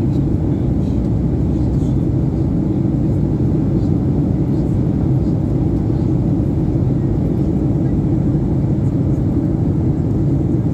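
Airliner cabin noise: the steady low rumble of jet engines and airflow heard from inside the passenger cabin during the descent, holding an even level throughout.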